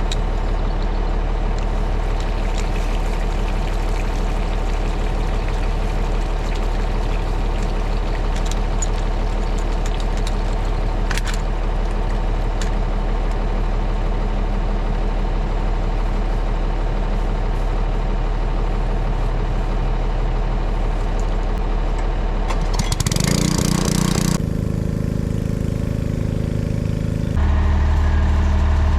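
A vehicle engine runs at a steady speed. About 23 seconds in there is a brief louder rush and the engine note changes, and a couple of seconds before the end it turns louder and deeper.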